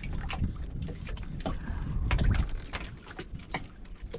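Paper banknotes rustling and flicking in quick, irregular crackles as they are counted by hand, over a low rumble.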